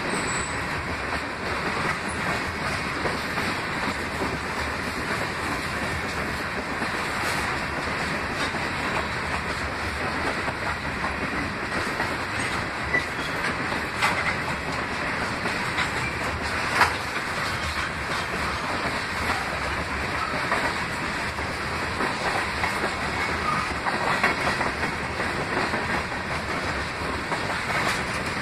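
Freight train of tank cars rolling steadily past: continuous steel-wheel-on-rail noise, with a few sharp clanks, the loudest about 17 seconds in.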